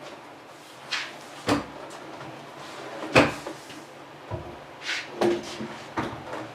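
A series of about seven knocks and thumps as a heavy slab of glued-up reclaimed wood is handled and flipped over onto finishing points. The loudest thump comes about three seconds in.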